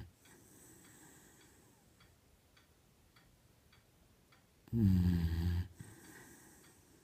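A 10-year-old beagle snoring in its sleep. One loud snore comes about five seconds in and lasts just under a second, its pitch dropping at the start. Softer breathing follows it.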